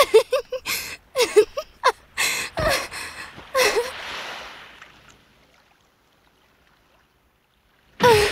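A young woman's short, breathless gasps and cries, several in quick succession, with a low thump about two and a half seconds in and a rush of noise that fades out soon after. The last few seconds are nearly silent.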